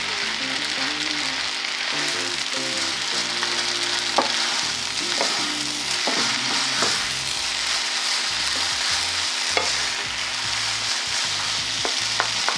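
Rice noodles with tofu and vegetables sizzling steadily in a frying pan as they are stir-fried with two wooden spatulas, with scattered clicks and scrapes of the spatulas against the pan.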